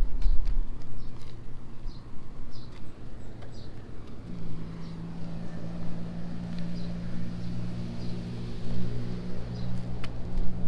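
A steady low engine drone comes in about four seconds in and holds, over scattered light footsteps on the path and faint bird chirps.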